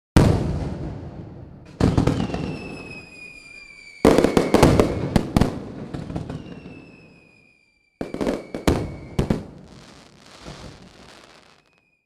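Fireworks going off in four volleys of bangs and crackling, each starting suddenly and fading away, with a thin falling whistle after the second and third.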